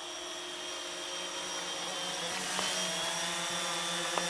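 IdeaFly Mars 350 quadcopter's newly fitted motors and propellers humming steadily in a hover, growing gradually louder as it is flown closer.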